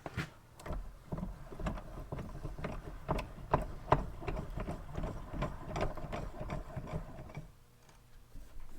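Quick, irregular clicking and clinking of hand tools being handled, stopping about seven and a half seconds in.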